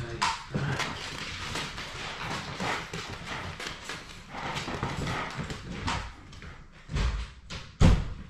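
Labrador puppies scampering on a wooden floor, a dense patter of claws clicking and paws tapping. Two loud thumps come near the end.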